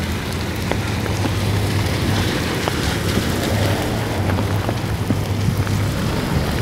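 Heavy rain pouring and splashing on a wet road, with scattered sharp ticks of drops, over the steady low rumble of cars driving through the water.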